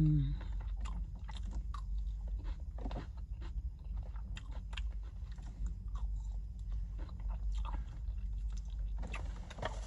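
A person chewing a mouthful of brown rice, chicken, peppers and onions, with irregular small clicks of the mouth.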